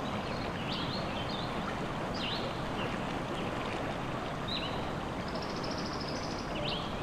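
Small songbirds chirping in quick sweeping notes, with a short high trill in the middle, over a steady rushing sound like running water.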